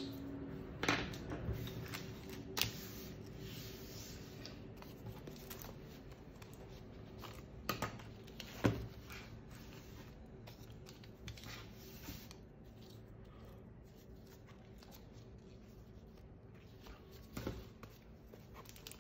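Stationery being handled on a wooden desk: a few scattered sharp taps and light rustling of paper and packaging as notebooks, covers and a pen are picked up and set down.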